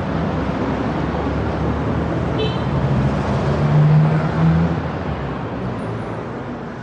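Street traffic noise: a steady rush of passing cars, with one vehicle's engine drone swelling loudest about four seconds in and then fading.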